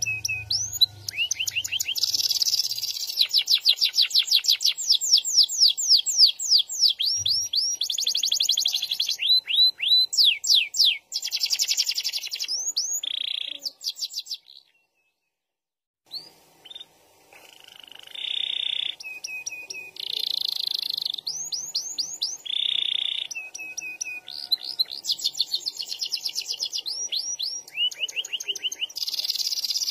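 Domestic canary singing a long, varied song of fast trills and quickly repeated rising notes, the long rolled phrases prized in song canaries. The song breaks off completely for about a second and a half midway, then resumes.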